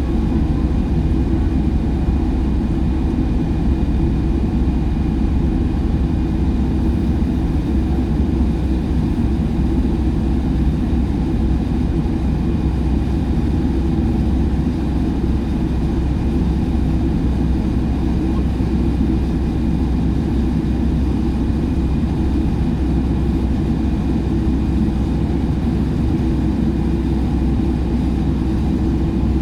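Airliner cabin noise while taxiing to the runway: a steady low rumble from the engines and rolling wheels, with a faint steady high whine over it.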